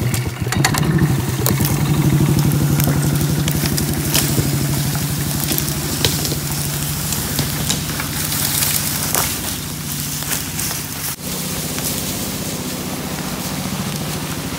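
Gas golf cart engine running steadily under load as it tows a felled tree trunk, picking up in the first second or two and then holding, with a slight dip later on. Crackling and snapping of the trunk and its branches dragging over brush and leaf litter runs over it.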